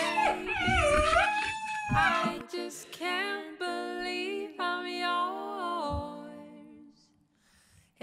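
Black Shiba Inu whining, high wavering whines in the first two seconds, over background music with a melody that fades out about a second before the end.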